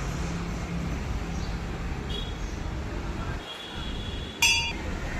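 A single sharp strike of a metal temple bell about four and a half seconds in, ringing briefly with several clear tones, over a steady low rumble of road traffic.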